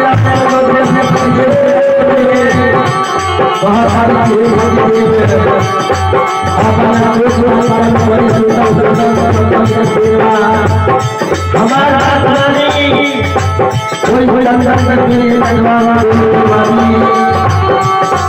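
Harmonium playing held notes with a hand drum keeping a steady beat, and a man singing a Hindi devotional bhajan over it, his voice sliding between notes.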